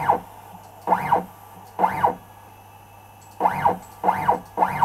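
CNC machine's stepper motor jogging a lead-screw axis in six short moves, three spaced about a second apart and then three closer together. Each move is a brief whine that rises and falls in pitch, over a steady low hum.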